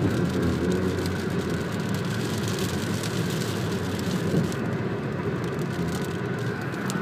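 Steady road noise inside a car's cabin moving at highway speed, with rain hitting the windshield.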